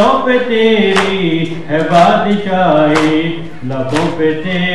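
Male voices chanting a noha, a Shia mourning lament, in long held sung notes, over sharp rhythmic beats about once a second from matam, the mourners beating their chests in time.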